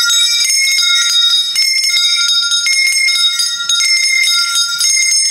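Small metal hand bells ringing without pause in a quick, uneven rhythm, several pitches overlapping. This is the bell rung by the Onappottan (Onesvaran), the silent ritual figure of Onam.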